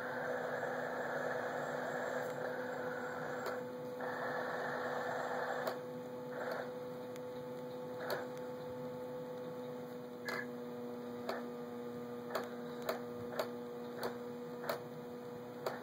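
A steady hum with hiss, its noise dropping out briefly in places, and a string of short faint clicks in the second half.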